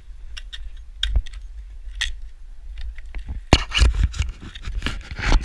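Ice-climbing gear clinking and scraping against ice and rock: a few separate metallic clicks, then a dense run of knocks and scrapes about three and a half seconds in.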